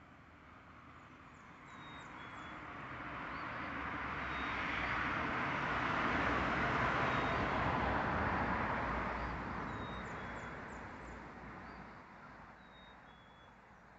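A vehicle driving past on the bridge: a broad road noise that slowly swells, is loudest about halfway through, then fades away over several seconds. Faint bird chirps sound now and then.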